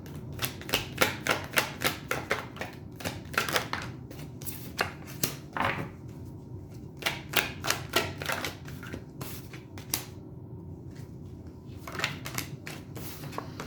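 Tarot cards being shuffled and handled on a table: a long run of irregular sharp card clicks and taps, dense at first and thinning out toward the end.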